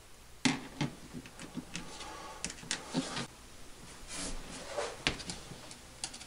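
Irregular light clicks and taps as thin metal push rods and small hardware are picked up and handled on a workbench board.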